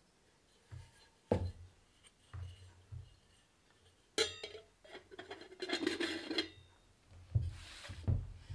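Aluminium pot and its metal lid clinking, knocking and scraping as the lid is fitted on. There is a sharp knock about a second in, a ringing metallic clatter about four seconds in, a short rattling scrape just after, and a few dull knocks near the end.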